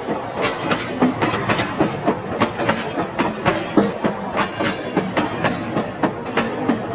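Train clattering along rails: a rapid, uneven clickety-clack of many clicks a second, for the toy locomotive pulling its tank wagon.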